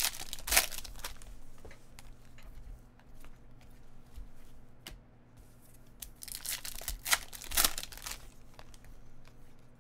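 Foil wrappers of Panini basketball card packs tearing and crinkling. There is a loud tear about half a second in, then a second pack is ripped open from about six and a half to eight seconds, with quieter crackles of wrapper and cards being handled between.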